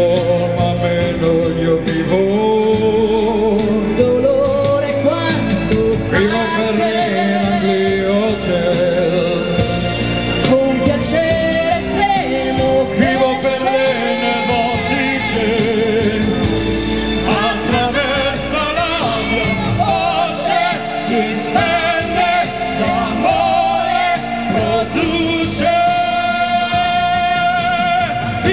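Live band music with a woman singing lead into a handheld microphone over the backing band. Near the end a man's voice takes up the singing on a long held note.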